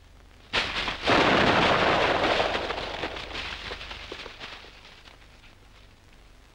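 An explosion on a war film's soundtrack: a sudden crack about half a second in, the main blast a moment later, then noise dying away over about four seconds.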